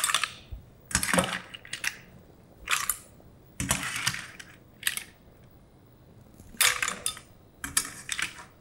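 Cooked mussel shells clattering against a stainless steel skimmer, the pan and a glass bowl as they are scooped out and drained, in a series of short clinking bursts about one a second.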